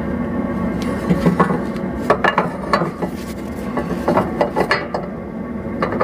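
Steel bracket clinking and scraping against the truck's steel frame rail as it is worked into place by hand: a string of irregular sharp metal clicks and knocks.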